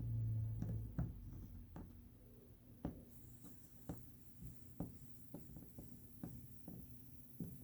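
Faint, irregular taps and soft rubbing as marine epoxy putty is pressed and smoothed onto a kayak hull, with a low hum in the first second.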